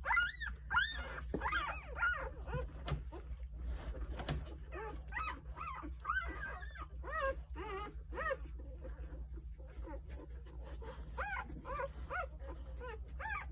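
Three-day-old Jindo puppies squeaking and whimpering in many short, rising-and-falling cries, several at once and without a break.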